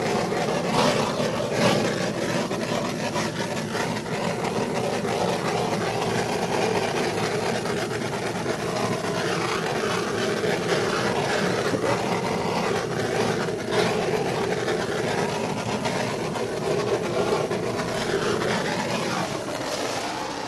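Small handheld butane torch burning with a steady hiss, its flame played over wet acrylic pour paint to heat the surface and bring up cells; it cuts off suddenly at the very end.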